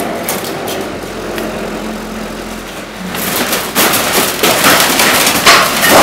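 Backhoe loader engine running while its bucket crushes a metal-framed shop-front structure. From about three seconds in, a growing clatter of crunching, bending sheet metal and frame knocks rises over the engine and gets louder towards the end.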